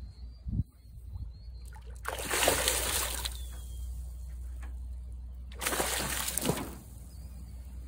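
A hooked largemouth bass thrashing at the surface beside the boat, in two bursts of splashing, each about a second long, a few seconds apart.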